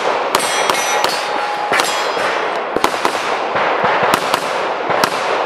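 Pistol fired in quick strings of shots, about a dozen in all, each with a sharp crack and an echo. Some hits in the first two seconds leave short ringing tones: steel targets clanging.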